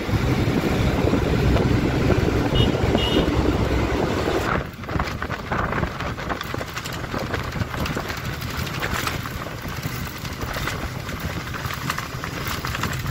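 Ride noise inside a moving APST passenger bus: steady engine and road noise. It drops in level about four and a half seconds in, leaving a thinner road rumble with light rattling.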